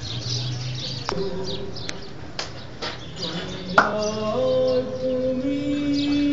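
Birds chirping. About two-thirds of the way in, a sharp bump on the microphone comes, and a man's voice starts a slow chanted recitation, holding long, steady notes.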